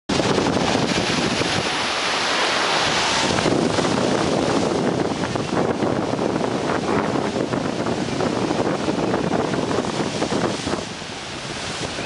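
Rough, storm-driven sea breaking on a rocky shore: a continuous wash of surf, with strong wind buffeting the microphone.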